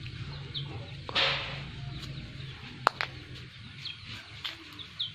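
Hens clucking softly in the yard, with a few short high bird chirps and a sharp knock about three seconds in.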